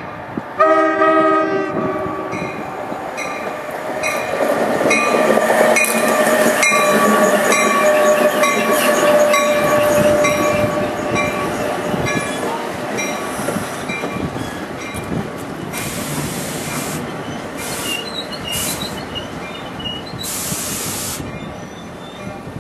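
New Jersey Transit train giving a short horn blast about half a second in, then running past with its wheels clicking over rail joints and a steady squeal. Several bursts of hissing come near the end.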